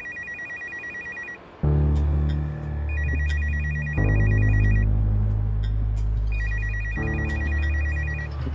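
A telephone ringing in a rapid electronic trill: three rings, each about two seconds long. After the first ring, background music with deep bass notes comes in loud and stays under the ringing.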